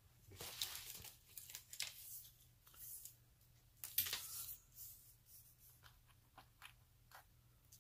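Rustling and crinkling handling noises from things being moved about and rummaged through, with scattered light clicks, loudest about four seconds in.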